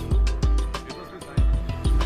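Background music with a strong low beat, about two or three hits a second, under held notes.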